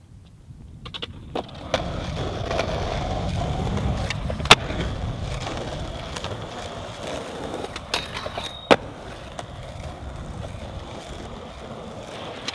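Skateboard wheels rolling on smooth concrete: a steady rumble that comes up about two seconds in. Over it are a few sharp clacks, the loudest about four and a half seconds in and two more around eight seconds in.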